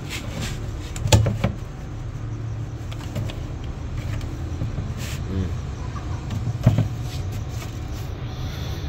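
A steady low hum with a few knocks and clicks as the plastic jerry-can nest boxes are handled against the wooden board; the two loudest knocks come about a second in and near seven seconds.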